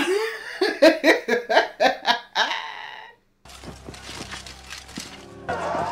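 Hearty human laughter, a quick run of ha-ha pulses lasting about three seconds, then it cuts off. After a brief gap comes fainter background sound from the TV episode, with a few clicks.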